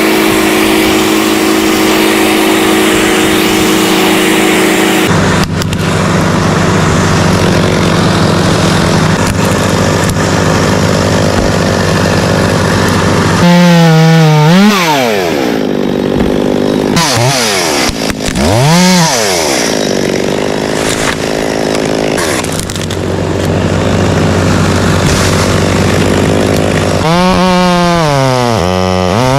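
Chainsaws running and cutting, the engine note holding steady at first and then revving sharply up and down several times, with abrupt changes where clips are joined.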